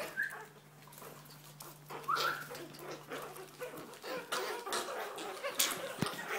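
A Chihuahua puppy and kittens scuffling and scrabbling in a plastic laundry basket, with scattered clicks and knocks and a couple of short high-pitched cries, one right at the start and a rising one about two seconds in.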